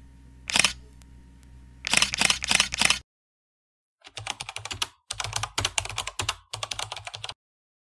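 Keyboard-typing sound effect: from about four seconds in, three quick runs of sharp clicks, like keys being typed. It is preceded by a few short noisy bursts in the first three seconds and a second of silence.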